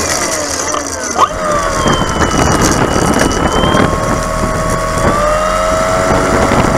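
RC airplane's motor and propeller heard from on board over rushing wind. The pitch falls as the throttle comes back during the first second or so, then holds at a lower steady setting and rises slightly about five seconds in. A sharp knock about a second in.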